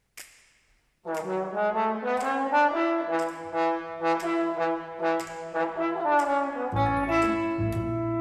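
Instrumental introduction by a classical ensemble: held chords over a steady tick about twice a second, with a low bass joining near the end. A single short click comes just before the music starts.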